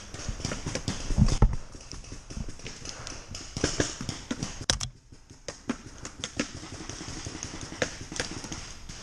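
Paintball markers popping at irregular intervals across the field, scattered single shots and short strings, with a few sharper cracks close by, one of them loud near the middle. A heavier low thump about a second in.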